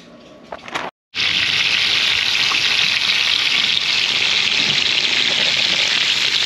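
Breaded black grouper fillets shallow-frying in hot oil in a pan: a loud, steady sizzle that starts suddenly about a second in.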